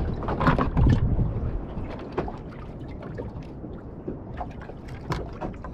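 Wind buffeting the microphone on a small boat at sea, loudest in the first second, with a few scattered light clicks and knocks as a small snapper is unhooked.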